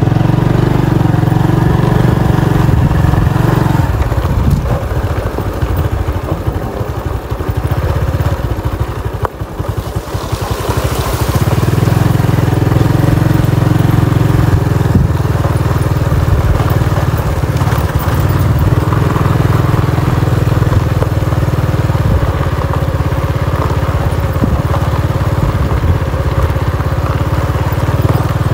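Motorbike engine running while riding along a gravel dirt track, dropping back for several seconds in the middle, then steady again.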